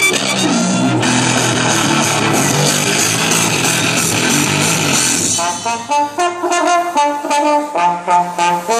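Music playing loudly. About five seconds in it changes to a series of short held chords, each about half a second long, with brief gaps between them.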